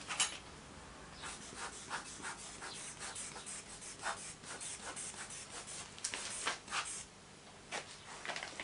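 A cloth bag of parting powder patted and rubbed over a sand mould and its pattern: a run of short, soft, hissy strokes, a few a second, with two more after a brief pause near the end.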